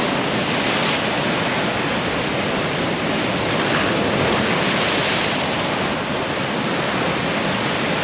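Sea surf washing in steadily on the shore, a continuous noise of breaking waves, with wind buffeting the microphone.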